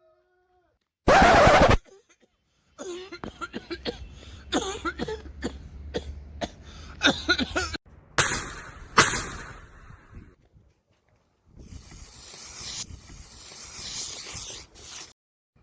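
A person coughing: one loud, harsh cough about a second in, followed by a stretch of smaller irregular coughing sounds. A steady rushing noise runs through the last few seconds.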